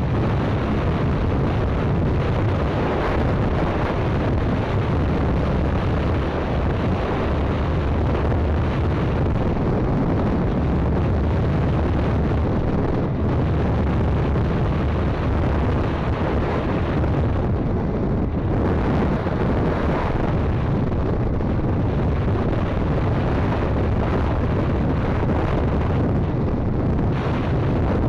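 Steady wind rumble on the microphone of a 50cc Arora moped riding at road speed, mixed with the moped's running and tyre noise.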